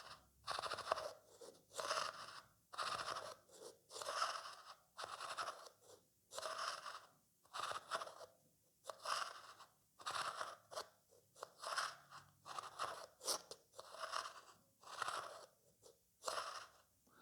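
A spoon scraped over a vase in repeated rasping strokes, about one a second, as a stand-in imitation of snoring.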